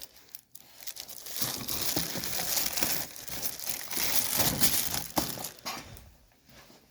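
Packaging crinkling and rustling in irregular handfuls as a fuel tank is unwrapped from its box, dying away near the end.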